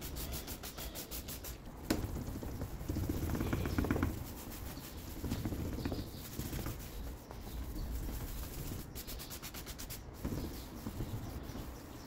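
Water spritzed from a hand trigger spray bottle onto a plastic car headlight lens, with a sharp click about two seconds in. A cloth then rubs and wipes the wet lens in uneven strokes.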